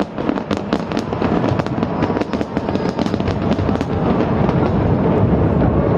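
Aerial fireworks going off in a display: rapid crackling reports, densest in the first few seconds, over a steady low rumble of bursts.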